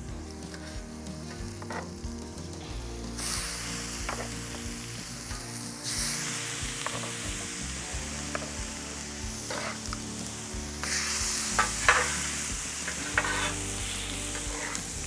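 Ribeye cap steaks searing in butter on a hot cast iron griddle. The sizzle starts about three seconds in and grows louder near six and eleven seconds as more steaks go down. A few clicks and scrapes of a metal spatula and tongs on the griddle come through it.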